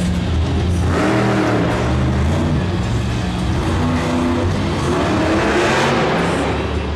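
Monster truck's supercharged big-block V8 revving hard as it races over the dirt. The engine's pitch climbs about a second in and again near the end, as it accelerates toward the jump.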